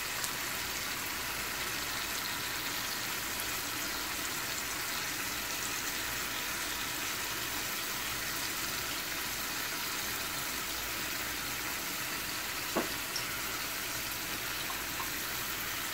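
Chicken wings deep-frying in a pan of hot oil: a steady sizzle, with one light tap about three-quarters of the way through.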